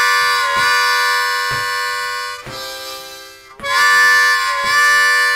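Diatonic harmonica in C playing a train-whistle figure: holes 3 and 4 drawn together as a chord, shaped into two wailing 'wah' notes with a bend in pitch, then a quieter rush of breath blown out over the harp, and the wah chord starting again about three and a half seconds in.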